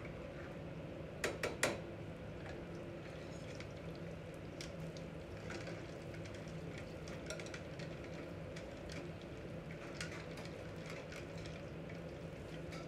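Kitchen clatter of utensils on pots and pans: three sharp clinks in quick succession about a second and a half in, then scattered lighter clicks and taps, over a steady low hum.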